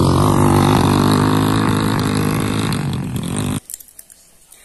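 Dirt bike engine running close by with a steady, slightly wavering pitch, cutting off suddenly about three and a half seconds in.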